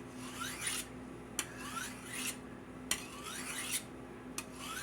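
Large kitchen knife blade drawn along a butcher's steel, honing the edge at its original angle. About one stroke every second and a half: each starts with a sharp tick, then a metallic scrape that rises in pitch.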